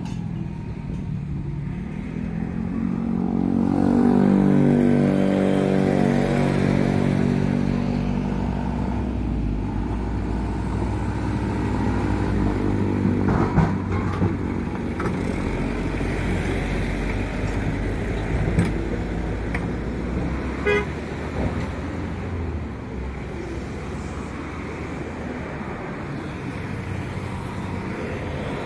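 Road traffic passing: a heavy vehicle's engine goes by, loudest a few seconds in, with its pitch falling as it passes, followed by a steady low traffic rumble and a few short knocks.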